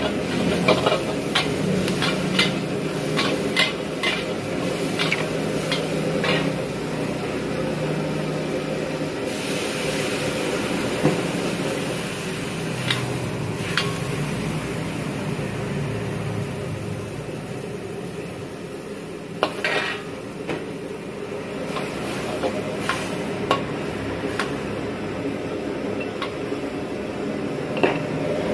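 Metal ladle clanking and scraping against a steel wok as squid and vegetables are stir-fried, over a steady sizzle. The clanks come thick and fast for the first several seconds, then only now and then.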